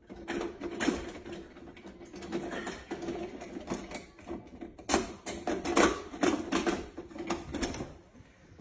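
Metal handcuffs clicking and rattling in quick, irregular clicks, busiest and loudest a little past halfway, as the cuff's ratchet is shimmed with a hair clip and the wrist is worked free.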